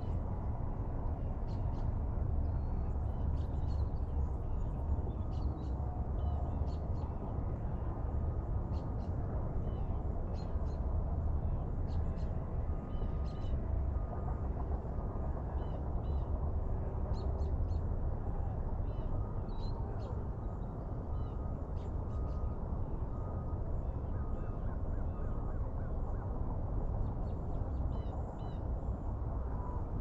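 Birds calling in the background with short high chirps scattered throughout, over a steady low rumble.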